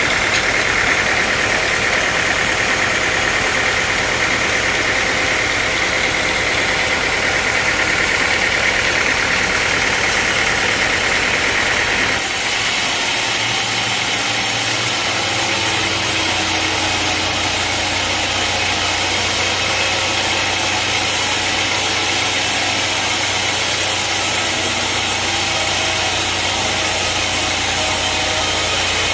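Sawmill machinery running steadily, with an engine-like drone. Its sound changes abruptly about twelve seconds in.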